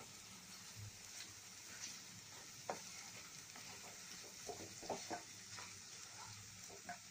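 Wooden spatula stirring thick ground toor dal chutney into its oil tempering in a nonstick frying pan, with faint sizzling and a few light taps and scrapes of the spatula on the pan.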